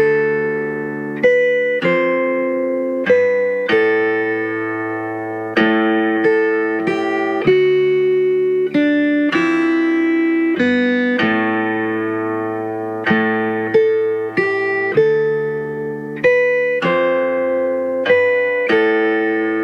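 Background music of plucked guitar chords, a new chord struck every second or two and left to ring and fade.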